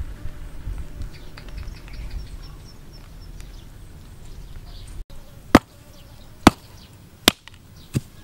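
A low rumble with faint high chirps, then, after a sudden break, four sharp clicks a little under a second apart, the loudest sounds here.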